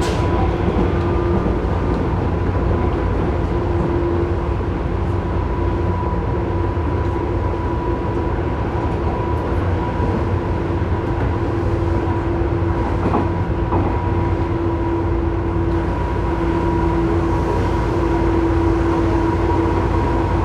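Tobu 9000 series electric train running, heard from above the armature chopper of car MoHa 9204: a steady chopper hum held at two fixed pitches over the wheel and track rumble. This car's chopper makes an abnormal noise. A couple of brief clicks about 13 seconds in.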